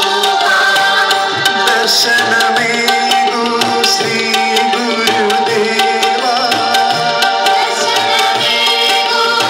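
Group singing a devotional bhajan with rhythmic drum accompaniment, carried through loudspeakers.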